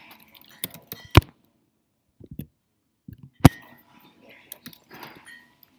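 Typing on a laptop keyboard: scattered key taps with a few sharp, loud key strikes, the loudest about a second in and again past the halfway point.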